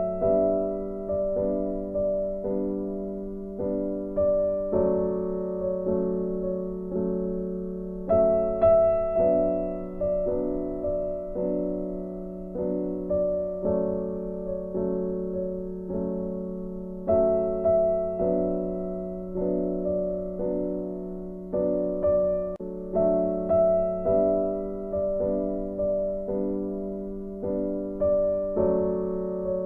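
Gentle piano background music, with notes struck about twice a second, each one fading away.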